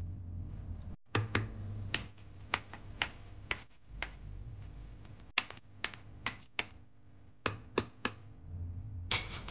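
Metal potato masher striking the bottom and sides of a stainless steel pot while mashing boiled potatoes, a sharp clack roughly every half second at an uneven pace, sometimes two in quick succession.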